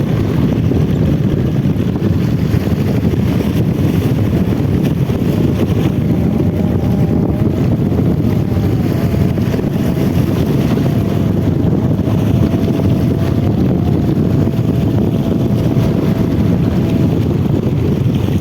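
A small boat's engine runs steadily at sea as a low rumble, with wind buffeting the microphone. A faint thin whine drifts a little in pitch over it.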